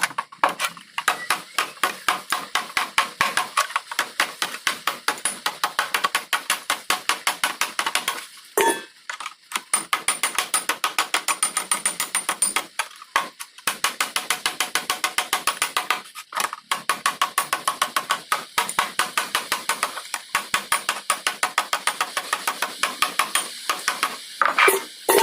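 Hammer striking metal in rapid, even blows, about five a second, with a few short pauses between runs.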